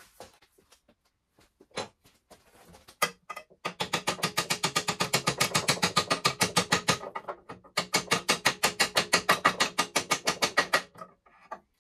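Rapid, even metallic clicking from a hand tool working on the lathe's new three-phase motor mounting, in two spells of about three seconds with a short break between, after a few separate knocks.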